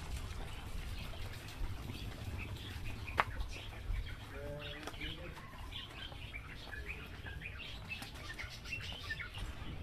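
Small birds chirping, many short high calls scattered throughout and busier in the second half, over a low rumble, with a single sharp click about three seconds in.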